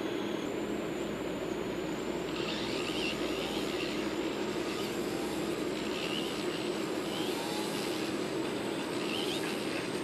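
Steady mechanical whirring noise with a faint, thin high-pitched whine running through it.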